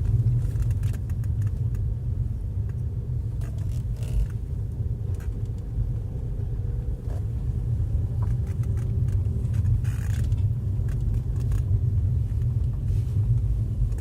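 Alfa Romeo GT running with a steady low rumble, with several short clunks scattered through. This is the clunking the owner hears when the car pulls away from a standstill and when braking.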